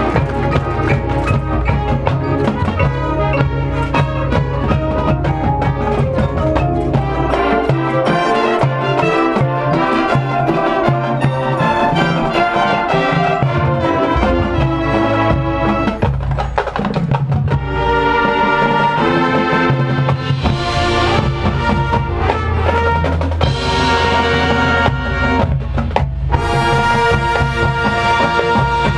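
Marching band playing its field show: brass over drum percussion. The low drums drop out for several seconds about a third of the way in, then come back under held brass chords.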